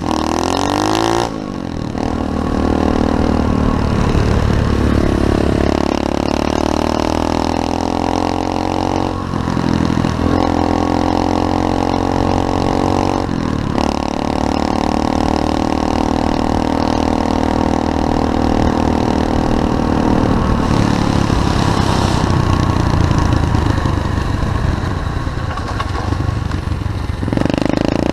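SSR 125cc pit bike's single-cylinder four-stroke engine running hard under acceleration, its pitch climbing and breaking off at each gear change several times in the first half, then held fairly steady at high revs.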